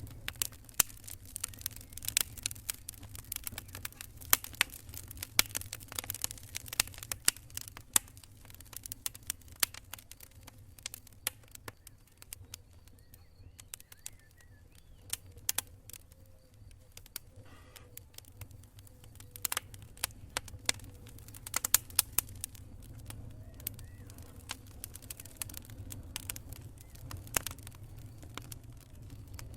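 Burning wood campfire crackling: irregular sharp pops and snaps, thinning out midway through and then picking up again, over a steady low rumble.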